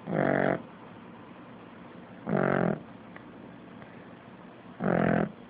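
A sleeping pet's butt snoring: three pitched, buzzing half-second noises about two and a half seconds apart, in the slow rhythm of snoring.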